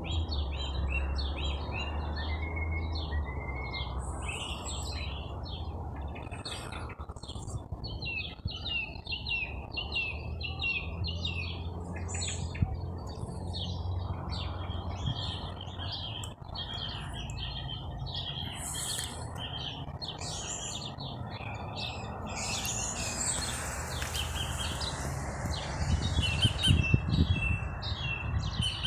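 Many small birds chirping and twittering continuously in short repeated calls, over a steady low hum. Near the end, low bumping noise grows louder.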